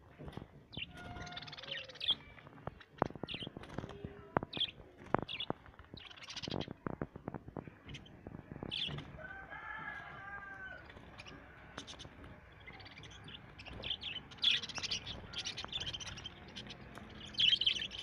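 A cage full of budgerigars chattering with many short, high chirps, busiest near the end, among scattered sharp clicks from birds moving about the cage.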